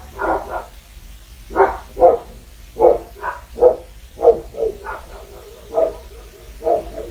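Two dogs barking: a dozen or so loud, sharp barks in quick runs, with a short pause about a second in.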